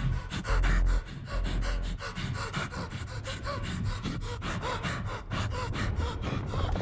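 A boy panting and gasping in rapid, frightened breaths, with small whimpers. A deep low rumble is loudest in the first two seconds.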